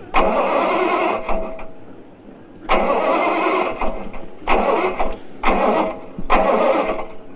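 A car's starter cranking the engine in five short tries, each opening with a click and fading after about a second, and the engine does not catch: a car that will not start.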